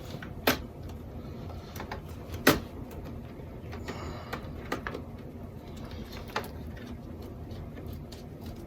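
Sharp clicks and knocks of a rocker switch and its retaining ring being handled and straightened in a panel, two louder knocks about half a second and two and a half seconds in and a few lighter ticks after, over a low steady hum.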